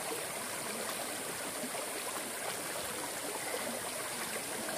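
Running water of a small stream, a steady burbling rush with no break.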